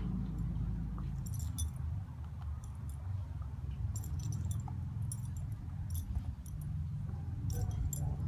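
Light metallic jingling of a dog's collar tags in short clusters, several times, as the dog moves its head over a tennis ball. Under it runs a steady low rumble.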